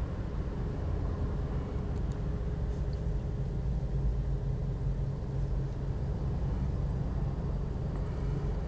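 Steady low mechanical rumble of background noise, with a few faint light clicks.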